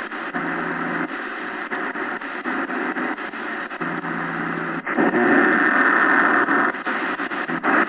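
Shortwave static and hiss from the XHDATA D-901 portable radio's speaker as it is tuned between stations, broken by faint clicks. A low hum comes in twice, and the static gets louder for a couple of seconds past the middle.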